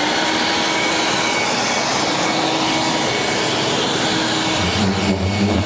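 Corded electric leaf blower motor running, forcing air into a hovercraft's inflatable tarp skirt: a loud, steady rush of air with a faint whine. A deeper hum joins about four and a half seconds in.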